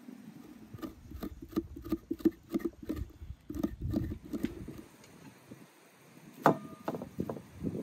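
Metal spoon scraping the flesh out of the inside of a raw pumpkin: a quick run of short rasping scrapes, about three or four a second. Near the end comes one sharp clink with a brief ring.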